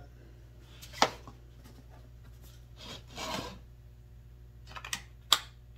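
Bolt-extractor sockets and their case being handled: a sharp click about a second in, a brief scraping rub around three seconds, then a few small clicks and one sharp click near the end.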